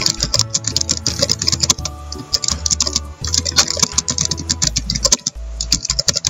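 Fast typing on a computer keyboard: a quick, uneven run of key clicks, with a brief pause about three seconds in.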